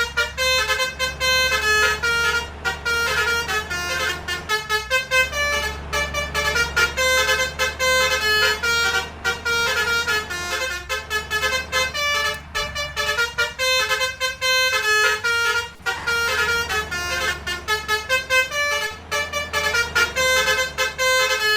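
A bus's 'telolet' multi-tone air horn playing a quick tune of short, stepping notes, over a steady low engine hum.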